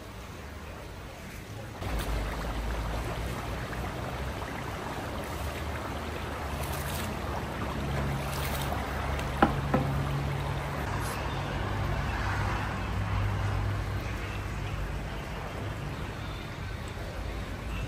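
Huge cast-iron kazan of Uzbek plov boiling, the broth bubbling around a mound of rice, over a steady low rumble. A single sharp knock about nine seconds in.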